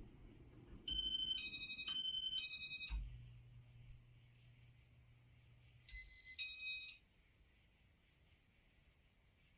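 Electronic confirmation beeps from a Casablanca Inteli-Touch ceiling fan control: a run of stepping tones lasting about two seconds, then a shorter two-note beep about six seconds in. A low steady hum stops at the second beep.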